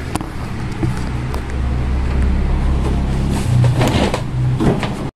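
The plastic casing of an air cooler being handled during disassembly: light knocks and rustling over a steady low hum that swells about a second in and eases near the end.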